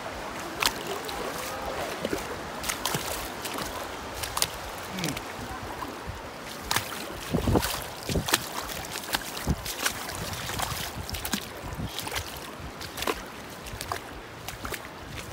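Bare feet splashing and wading through ankle-deep seawater: a run of short, sharp splashes, thickest in the middle, over a steady wash of shallow surf and wind.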